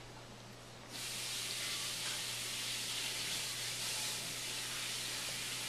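Food sizzling in a hot frying pan, starting suddenly about a second in and then a steady high hiss.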